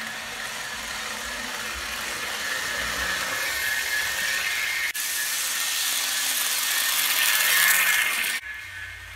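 Electric model train running along the track: a steady whir with a thin high whine, growing louder over several seconds and stopping abruptly near the end.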